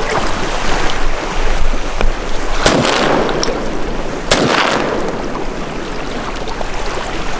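Two shotgun shots about a second and a half apart, each followed by a ringing echo, over steady wind and wave noise.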